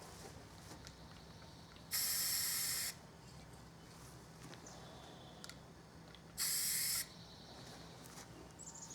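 Aerosol spray-paint can spraying two short bursts, the first about a second long and the second about half as long, laying a light coat of paint on a rip fence part.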